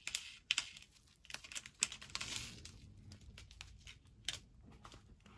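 Small clear plastic bags of diamond painting drills crinkling and rustling as they are handled and turned over, with scattered light clicks. The rustle is strongest at the start and again about two seconds in.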